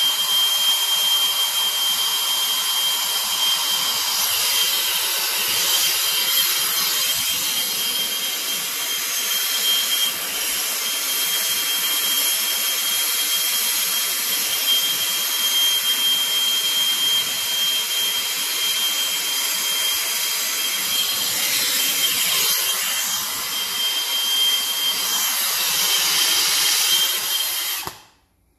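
A hose-fed plumbing torch burning steadily with a loud hiss and a thin, steady high whistle as it heats a copper fitting for soldering. It cuts off suddenly near the end.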